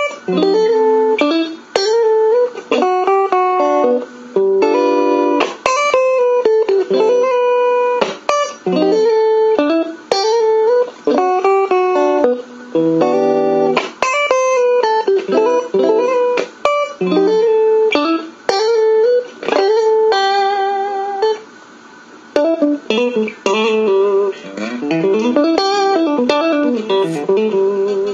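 Solo electric guitar with a clean tone, played in short phrases of chords and single-note lines with brief gaps between them.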